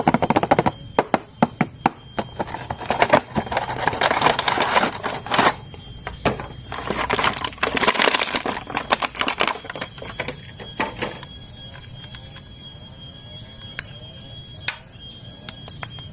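Plastic toy packaging and figures being handled: crackling, crinkling and sharp clicks, busiest for the first ten seconds, then quieter with a few scattered clicks.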